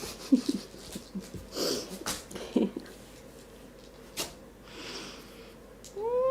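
A dog sniffing and snuffling close up, with short breathy snorts and a few clicks, ending in a brief whine that rises in pitch about six seconds in.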